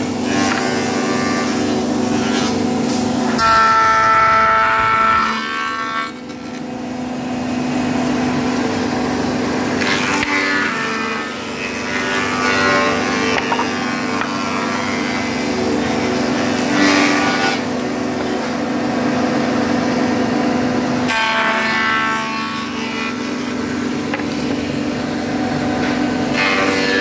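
Woodworking machines running steadily with a hum, with a higher whine rising over it for a few seconds several times as the cutters work.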